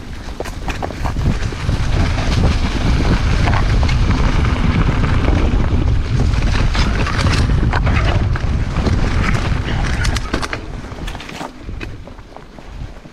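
Wind buffeting the microphone of a mountain bike being ridden, with scattered knocks and rattles from the bike over rough ground. The rush eases off about ten seconds in.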